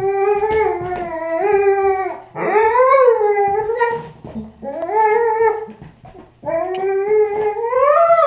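Dog making long, drawn-out whining howls: four wavering calls, each a second or two long, sliding up and down in pitch.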